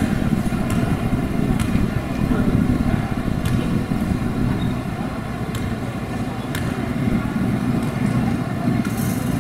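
Steady low rumble of gymnasium background noise, with a few sharp knocks scattered through it.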